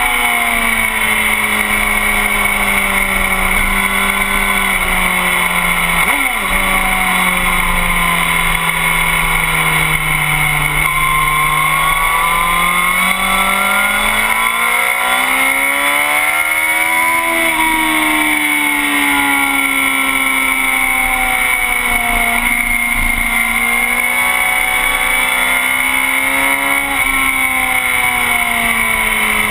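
Sport motorcycle engine running at speed on a race track: its pitch sinks slowly for about ten seconds, climbs to a peak around seventeen seconds in, eases off and rises again near the end. A brief sharp blip comes about six seconds in.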